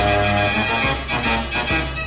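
Background music played on an organ-like keyboard, with notes changing every fraction of a second.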